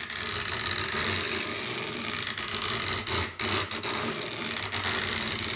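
Rapid, continuous ratchet clicking as the main nut of a Remington Model 8 barrel assembly is turned down with a tool against the spring-loaded ratchet piece. The clicking breaks off briefly a little past halfway, then carries on.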